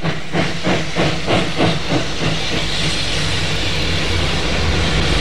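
Train sound effect: a rhythmic beat of about three strokes a second that fades out about two seconds in, giving way to a steady hiss over a low rumble that grows near the end.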